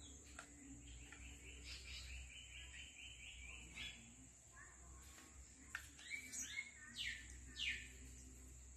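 Faint birdsong: a quick run of repeated chirps lasting about two seconds, then two sharp falling calls near the end.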